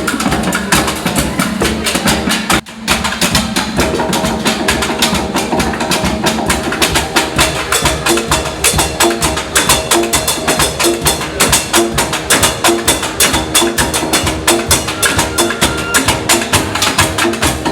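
Percussion music with a fast, steady beat of knocking strikes, played on instruments made from recycled materials. About two and a half seconds in, the sound briefly cuts out, then the beat carries on.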